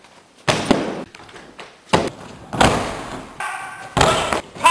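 Several heavy thuds of bodies landing on padded gym crash mats from flips and throws, about five impacts spaced unevenly.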